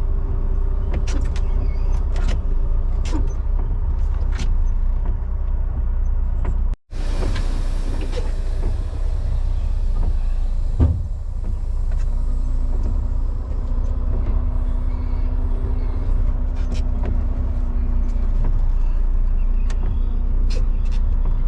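Truck engine and road noise heard from inside the cab while driving: a steady low drone with scattered sharp ticks. It breaks off for a moment about seven seconds in.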